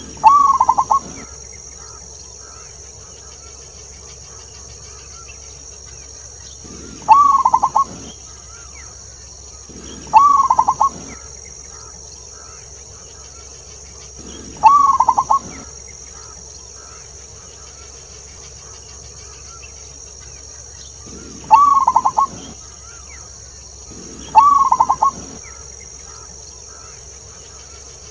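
Zebra dove (perkutut) giving its staccato cooing call six times. Each call is a quick run of short coos lasting about a second, several seconds apart, over a steady high hiss.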